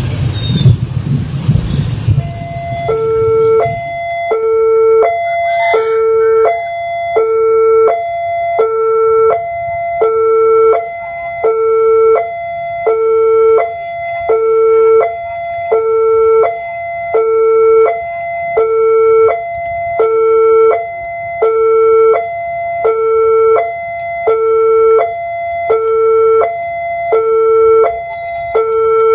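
Railway level-crossing warning alarm sounding a two-tone chime, alternating a lower and a higher tone about once a second, the signal that the barriers are down for an approaching train. Motorcycle engines and traffic rumble fill the first few seconds and fade as the alarm starts.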